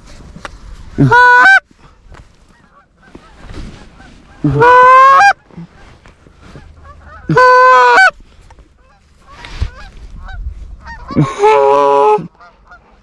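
Four loud Canada goose honks, each breaking sharply from a low note up to a higher held note; the last is rougher than the others.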